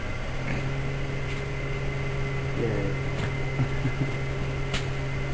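Eppendorf MiniSpin microcentrifuge running with its rotor at speed, giving a steady motor hum. The hum rises in pitch right at the start as the centrifuge reaches its set speed, then holds steady.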